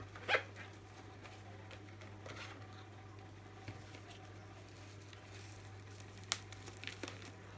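Plastic bubble wrap on a parcel being handled and cut open: scattered crinkling with a few sharp clicks, the sharpest about six seconds in, over a steady low hum.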